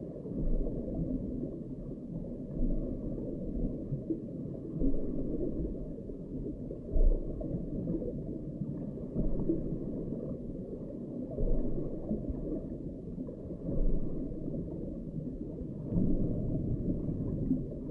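Muffled, steady low rumble of underwater noise picked up by an underwater camera under the ice, swelling in loudness now and then.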